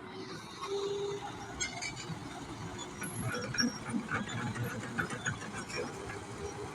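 Heavy machinery working, a steady low rumble with many short cracks and rattles through it, typical of an excavator clearing brush.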